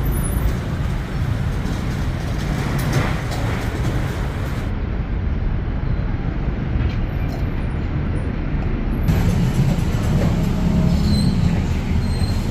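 Busy city street traffic running steadily, with a heavier low rumble of a passing large vehicle about nine seconds in.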